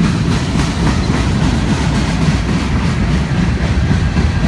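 BNSF train rolling past at close range: a steady, loud low rumble with wheels clacking over the rail joints.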